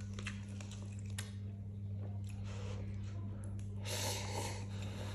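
Close-up chewing of noodles: small wet clicks and smacks, with a longer, fuller stretch of mouth noise about four seconds in. A steady low hum runs underneath.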